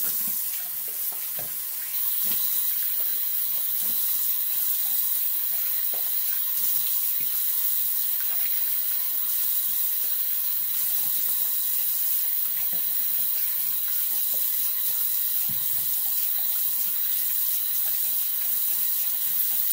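Bathroom sink tap running steadily, a little stronger about two seconds in, with light splashes as shaving lather is rinsed off the face.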